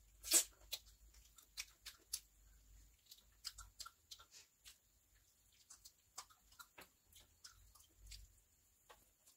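Close-miked eating sounds: scattered wet mouth clicks and lip smacks of chewing, with soft sticky sounds of fingers working biryani rice. The loudest smack comes about half a second in.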